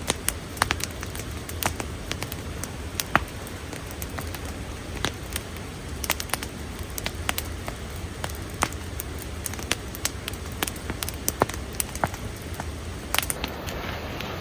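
Campfire crackling, with irregular sharp pops of burning wood over a steady hiss.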